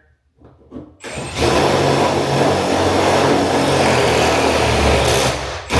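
Power drill spinning an adjustable drywall hole cutter, its blade scoring a 6-inch circle in the ceiling drywall for a can light. It starts about a second in, runs steadily, and drops out briefly near the end.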